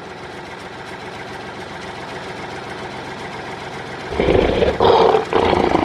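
Steady engine idling, like a tractor's, with a lion's roar about four seconds in, much louder than the engine and lasting about two seconds.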